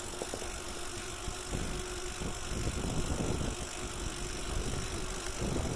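Bicycle riding along a paved trail: a steady low rumble of tyre and wind noise on a handheld phone microphone, with a faint hum through the middle.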